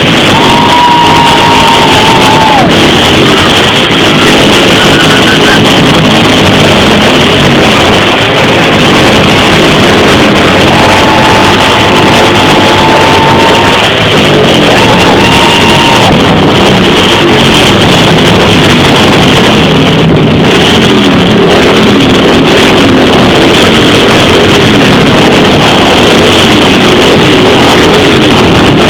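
A group of motorcycle engines running loudly together, their pitches rising and falling as they ride. A long steady high tone stands out three times over the engine noise.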